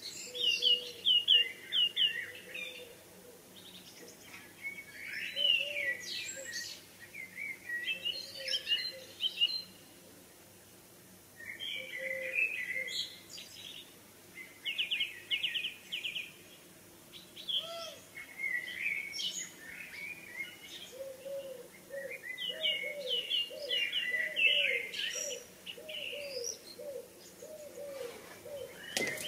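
Several songbirds singing in the evening chorus: short, varied phrases, some of them quick runs of repeated notes, with brief pauses between. A lower note repeats over and over through the last third.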